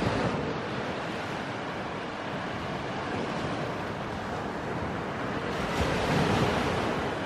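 Surf: small waves breaking and washing up a sandy beach, one wave breaking louder about six seconds in.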